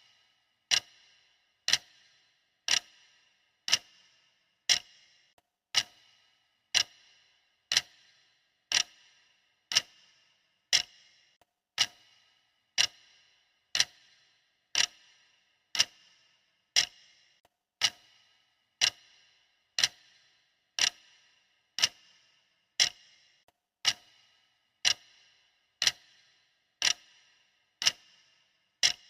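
Clock ticking steadily at one tick a second: sharp, even clicks, each with a short bright ring.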